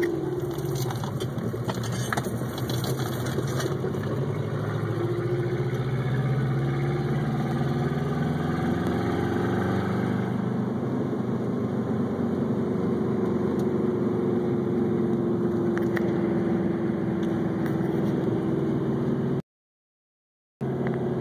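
1984 Subaru GL's EA81 flat-four engine running under way, heard from inside the cabin. Its pitch climbs steadily over the first several seconds as the car pulls away, then holds level. The sound cuts out completely for about a second near the end.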